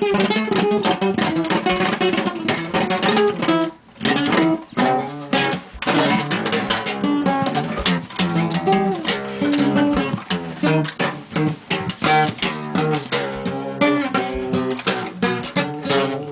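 Five-string nylon-string acoustic guitar in an open tuning on A, improvising with fast plucked notes and strums; the playing breaks off briefly about four seconds in, then carries on.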